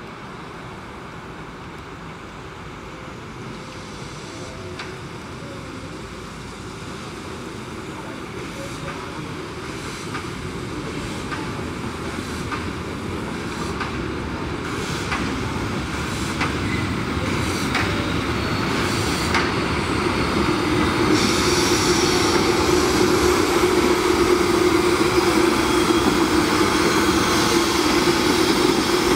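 ČSD class 434.2 steam locomotive working a passenger train as it approaches and passes, growing steadily louder, with a run of sharp clicks through the middle. From about three quarters of the way through, as it draws level, a high hiss and a steady tone join in.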